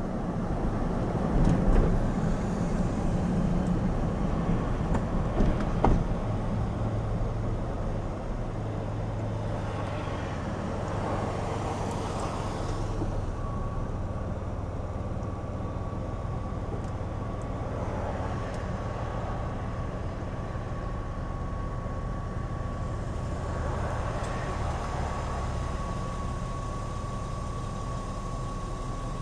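Car cabin noise: the car rolls along with road and engine noise and a few bumps, then settles to a steady low idle hum while stopped. A thin steady high tone comes in about halfway.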